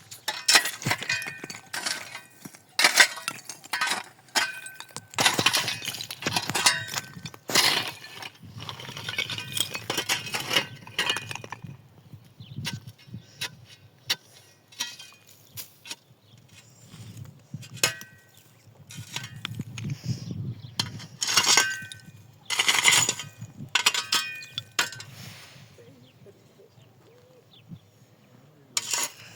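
Irregular bursts of clinking and rattling, some strokes leaving short ringing tones like small bells or glass, with quieter gaps between clusters.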